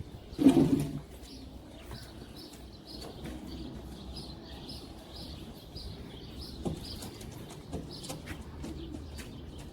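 King pigeons cooing, with one loud low coo about half a second in. A rapid series of high chirps repeats throughout.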